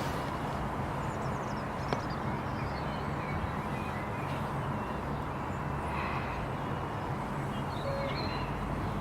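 Steady low outdoor rumble with faint, short bird chirps scattered through it, and a single sharp click about two seconds in.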